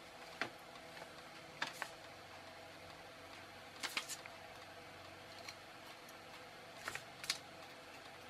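Small sharp clicks and ticks from handling a circuit board, as resistor leads are pushed into the printed circuit board of an LED chaser kit, scattered singly and in quick clusters over a faint steady hum.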